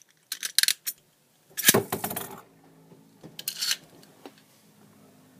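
A knock-off Wing Pegasus Beyblade is launched into a plastic stadium: a few sharp clicks, then a loud clatter about a second and a half in as it is launched and lands, then a faint steady whir as it spins, with another brief clatter about three and a half seconds in.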